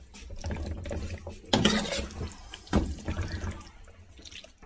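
Slotted plastic spoon stirring a wet mix of meat, peas and tomato in a metal paella pan, with squelching and scraping against the pan and two louder strokes about one and a half and three seconds in.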